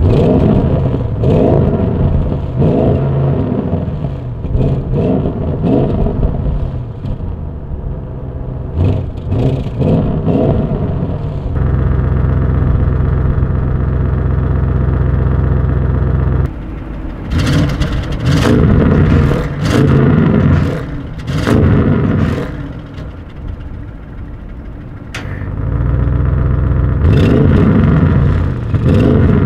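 Audi RS6 C8's 4.0 TFSI twin-turbo V8 revved hard through its sport exhaust while standing still: a string of quick blips that rise and fall, two spells held steady at higher revs, and sharp crackles and pops as the revs drop.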